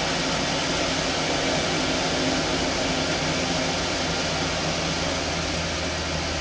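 Takagi TK-3 gas tankless water heater running steadily after its water flow is restored, its combustion fan and burner giving an even rushing hiss over a low hum.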